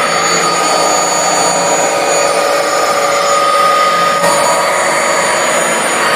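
Hoover Dual Power Pro carpet washer running on wash: a loud, steady suction-motor whine with several high tones over a rushing noise. The tone shifts slightly about four seconds in.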